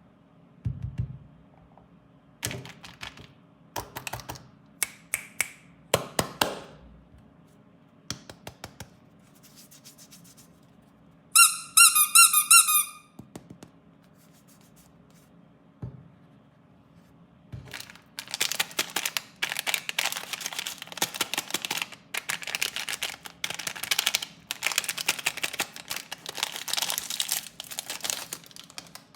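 Hands unboxing plastic-wrapped candy and toys: sharp taps and clicks on plastic packaging, a loud high pulsing squeak for about a second and a half, then about ten seconds of plastic wrapper crinkling.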